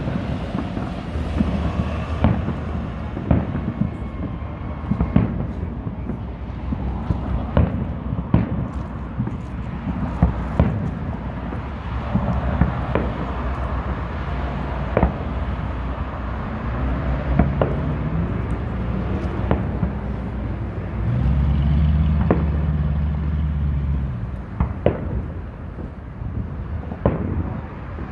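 Aerial fireworks shells bursting overhead: an irregular run of sharp bangs, about one every second or two, over a low rumble. A louder low, steady rumble swells for a few seconds about three-quarters of the way through.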